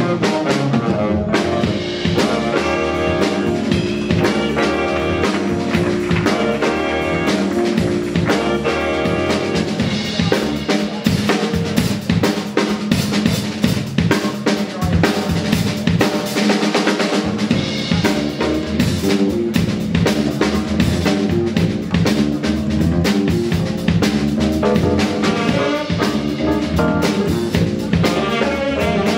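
Live jazz band music with the drum kit loudest: a busy groove of snare, rimshots and bass drum over electric bass and saxophones.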